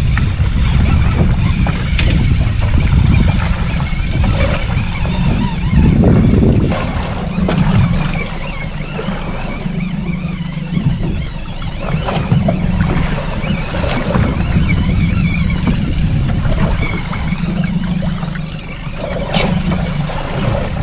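Wind buffeting the microphone on a small boat at sea, with waves slapping against the hull and a couple of sharp knocks.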